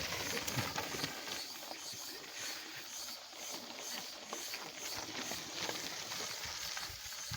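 Cicadas buzzing, a high steady drone that pulses about twice a second.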